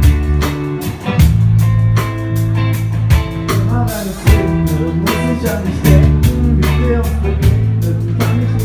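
A live band playing an instrumental passage: electric guitar, bass guitar and drum kit keeping a steady beat.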